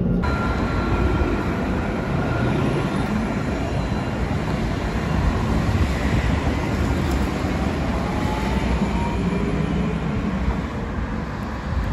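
Alstom Citadis tram running along the line past the platform: steady wheel-on-rail and running noise with a faint whine that rises in pitch about seven seconds in.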